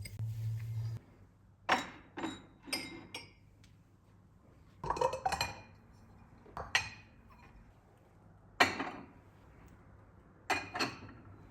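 Dishes, glassware and cutlery clinking as they are handled and set down. There are about nine separate sharp clinks, some in quick pairs, each ringing briefly.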